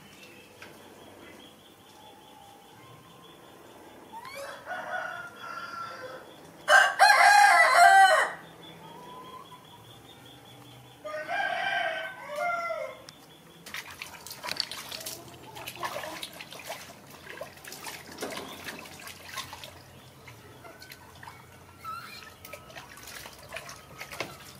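Water splashing and dripping in a plastic tub as a baby monkey is washed, starting about fourteen seconds in. Before that, three separate animal calls, the loudest lasting about a second and a half about seven seconds in.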